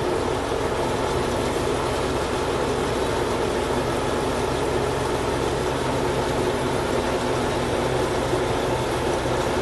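Crawler sideboom tractor's diesel engine idling steadily.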